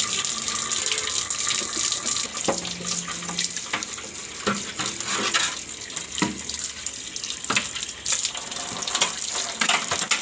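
Water running from a tap into a sink while removable fridge shelves and drawers are washed by hand, with occasional knocks as they are handled.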